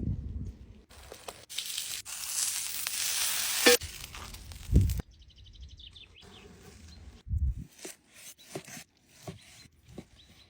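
Meat sizzling loudly over the fire for about three seconds, cutting off suddenly. Then come a dull thump and scattered knocks and clicks of cookware being handled.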